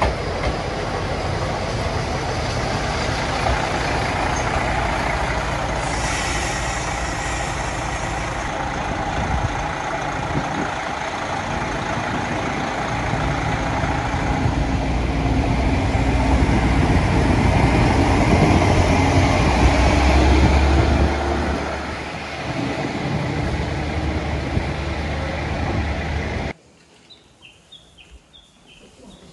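Diesel railcars at a station platform: engines running with a steady rumble, a brief burst of air hiss about six seconds in, then an engine revving, its pitch rising and its rumble loudest around the twentieth second. The rumble stops abruptly near the end, leaving a quiet room with faint footsteps.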